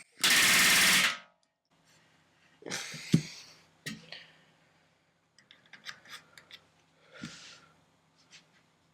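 A pneumatic rivet gun hammering in one burst of about a second, driving a flush countersunk rivet into the aluminium structure of an RV-7 horizontal stabilizer. It is followed by a shorter burst with a sharp metallic knock and a scatter of light clicks as tools and rivets are handled.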